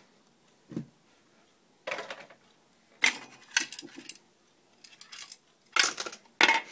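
Small metal screws and tools clinking and clattering as they are handled and set down on a hard surface, in several short clusters, the loudest about six seconds in.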